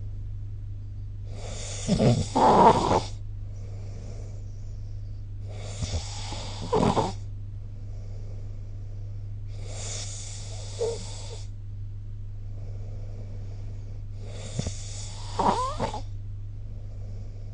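A sleeping person snoring: four rough snores about four seconds apart, the loudest the first, over a steady low hum.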